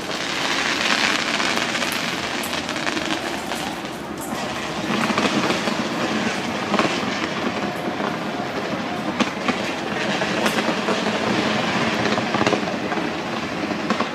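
A fireworks display crackling and banging continuously in a dense barrage, with several sharper bangs standing out.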